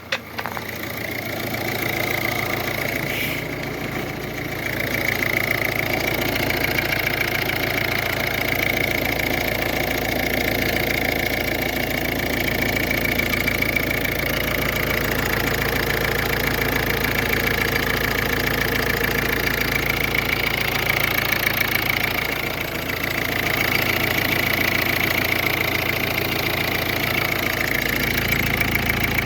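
2011 Ford Focus turbocharged engine idling steadily.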